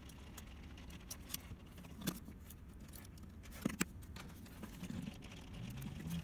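Faint small clicks and taps of hands handling a microSD card and a Raspberry Pi case as the card goes into the Pi and a cable is plugged in, over a low steady hum. Two sharper clicks come about two seconds and three and a half seconds in.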